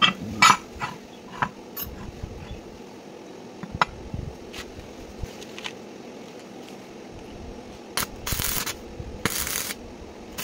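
Steel plate set down on a concrete floor with a few sharp metal clanks and knocks, then near the end two short bursts of stick-welding arc crackle as a steel cylinder is tack welded onto the plate.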